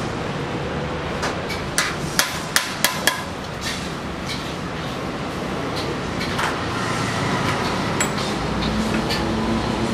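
A small hammer tapping a chisel to cut a character stencil out of a thin metal sheet. There is a quick run of six or so sharp taps starting a little over a second in, then a few scattered single taps, over steady background noise.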